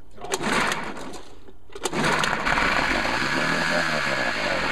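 Nissan 3.5 hp two-stroke outboard motor being started: a first short burst that doesn't catch, then it fires just under two seconds in and runs steadily with a wavering pitch. It is running on fuel poured straight into the intake manifold, which shows the reed valves are fine and the fault lies in the carburetor.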